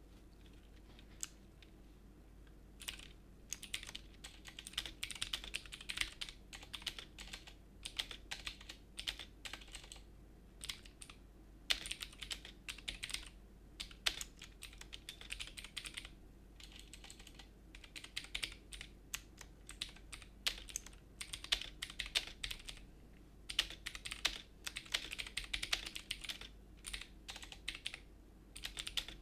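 Typing on a mechanical keyboard with clicky blue switches, picked up by a Trust GXT 232 Mantis USB microphone. A few single clicks give way to fast runs of key clicks in bursts, with brief pauses between them.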